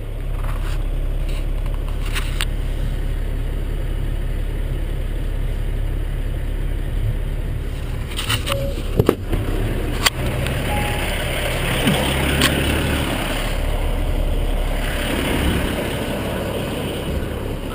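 Heavy plow truck's engine idling steadily, with a few sharp clicks about halfway through.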